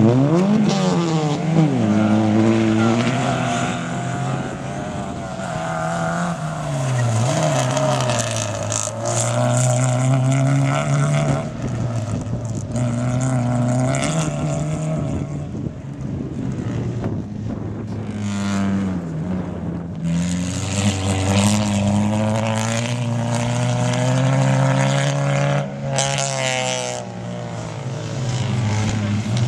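Racing hatchback engines running hard on a dirt autocross track, the pitch climbing and falling again and again as the cars accelerate and lift off for corners, with a sharp rev rise about half a second in.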